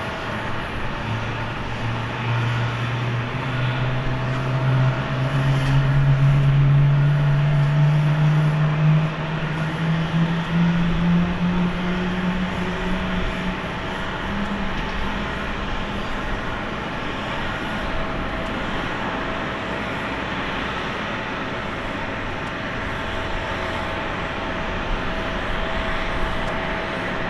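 Jet airliner engine noise at an airport: a steady rumble with a low hum that rises steadily in pitch through the first half, loudest around a third of the way in.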